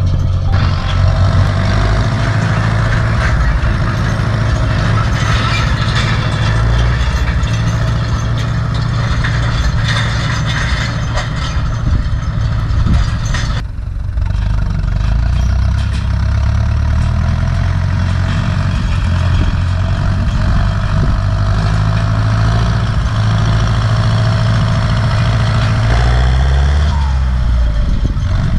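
Turbocharged four-cylinder diesel engine of an Ursus C-360 tractor running steadily under load while pulling a field roller, briefly dipping about halfway through before carrying on.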